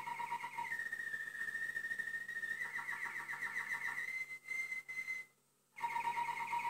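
A high whistle-like tone with a fluttering warble, holding a few steady notes and stepping from one pitch to the next. It cuts out for about half a second near the end, then returns.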